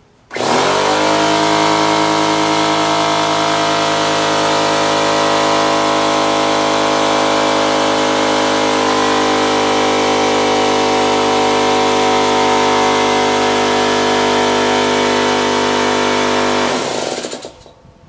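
Husky oil-free air compressor switched on and running: the motor and pump spin up within a second to a loud, steady, noisy run. Near the end it is switched off and winds down with falling pitch.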